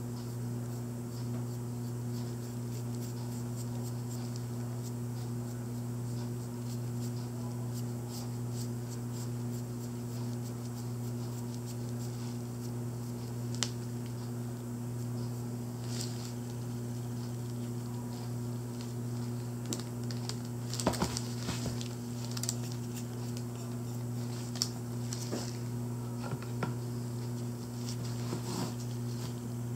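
A steady low hum, with faint scattered clicks and rustles from gloved hands handling a small painted figurine on wax paper. The clicks cluster about two-thirds of the way through and again near the end.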